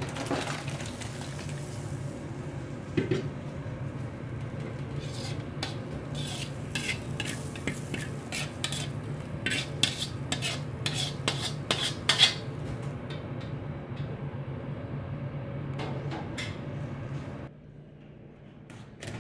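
Metal ladle scraping and knocking against a wok and a stainless steel hotel pan as thick sauce is poured and scraped out, with a burst of sharp clanks in the middle, over a steady low kitchen hum. The hum drops away near the end.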